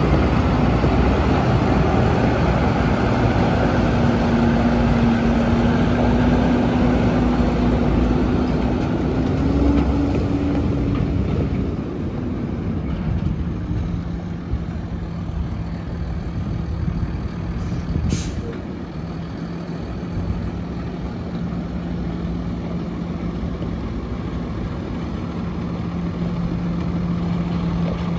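The diesel engine of a 2009 Peterbilt 335 dump truck runs as the truck drives off. Its pitch rises briefly about ten seconds in, then it quietens to a lower steady note as the truck moves farther away. A brief sharp hiss comes about two-thirds of the way through.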